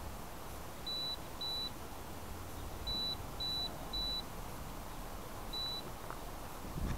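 Short, high electronic beeps from a crashed quadcopter, six in all in uneven pairs and threes, over a steady low hiss. A brief low thump comes right at the end.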